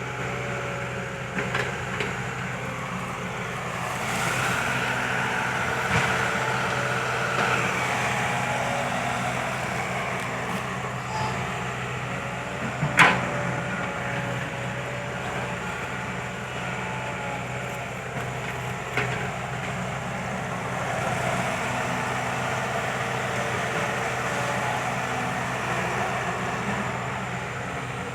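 Kobelco SK120 Mark 3 excavator's diesel engine running steadily under working load, with a hydraulic whine that rises and falls as it digs. There are scattered knocks and a single loud clank about 13 seconds in.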